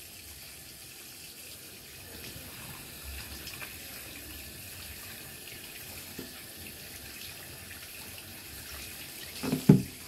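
Bathroom sink faucet running in a steady stream while soapy hands are rinsed under it, water splashing into the basin.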